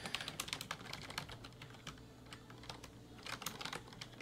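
Typing on a computer keyboard: a quick run of keystrokes, a short lull past the middle, then a few more key presses.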